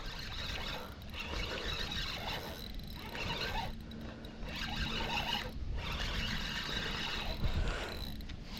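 Light spinning reel whining under load while a heavy catfish is reeled in, in stretches of about a second broken by short pauses.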